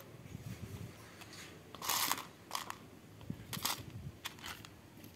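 Tiny plastic nanoblock bricks rattling and clicking against one another and a plastic tub as fingers stir through them, in several short bursts, the loudest about two seconds in.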